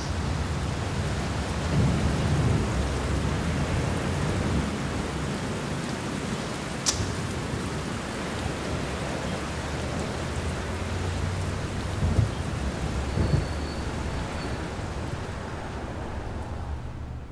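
Steady rain with low rumbles of thunder rolling through, the whole storm fading away at the end.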